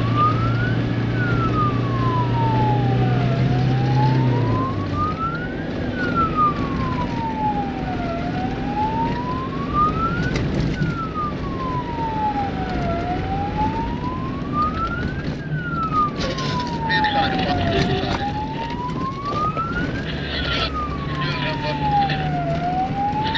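A siren wailing in slow, even rises and falls, one cycle about every five seconds, over the engine and rolling noise of an off-road vehicle driving on a dirt track, with a few knocks from bumps.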